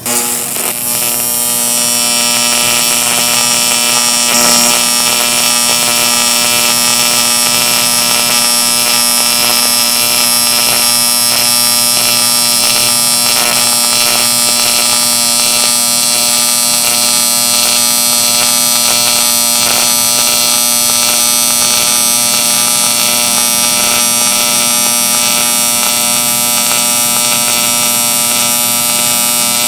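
AC TIG welding arc on aluminum plate: a steady electric buzz over a bright high hiss. It comes up over the first couple of seconds as the arc is struck, then holds steady.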